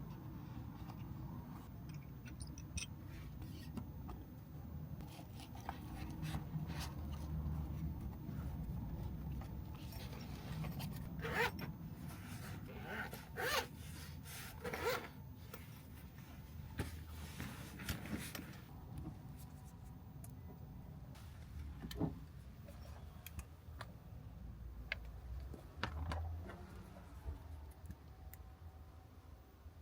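Close handling noises: rubbing, scraping and scattered clicks, with a cluster of zipper-like rasps in the middle. A low steady rumble runs underneath.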